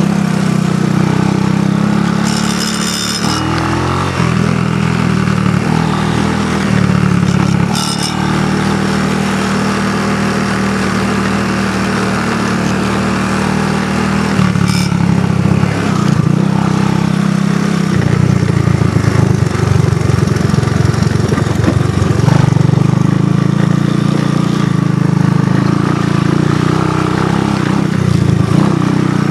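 A small ATV engine running while riding a trail, its pitch stepping up and down several times with throttle and gear changes. There are short high-pitched hisses or scrapes about 3, 8 and 15 seconds in.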